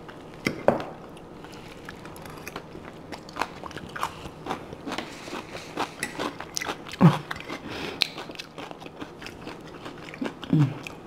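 Close-miked eating: chewing and biting food, with a fork clicking on a plate. There are a couple of short hums from the eater, the louder one about seven seconds in.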